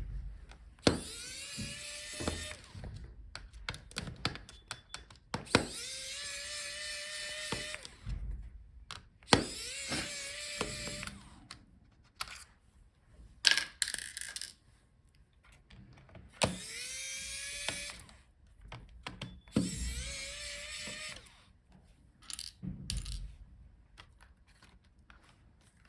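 Electric precision screwdriver running five times in short runs of one to two seconds, each spinning up to a steady whine, backing out the laptop's motherboard screws. Small clicks of handling sound between the runs.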